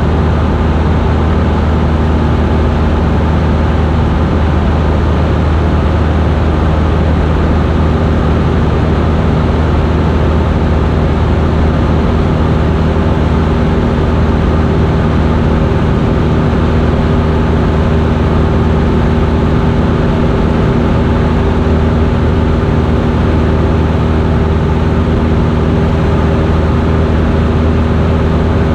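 Single-engine Cessna's piston engine and propeller running steadily, a constant low drone heard from inside the cockpit.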